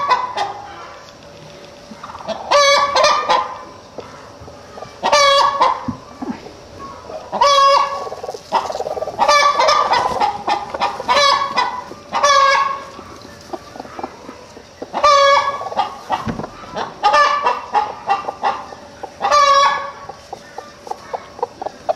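Brooding hen clucking, a loud drawn-out call about every two seconds, then quicker short clucks near the end.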